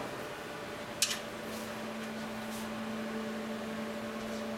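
A sharp click about a second in, then a steady electrical hum from the projector's equipment sets in, with a second, higher steady tone joining a couple of seconds later.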